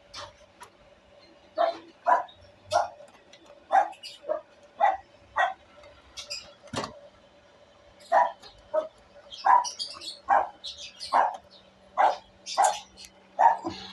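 A dog barking repeatedly: short sharp barks in irregular runs of about one or two a second, over a faint steady hum.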